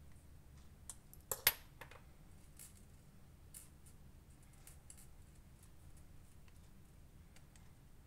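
Small sharp clicks from handling a precision screwdriver and a knife handle, bunched together about a second in, the loudest about a second and a half in, followed by a few faint scattered ticks.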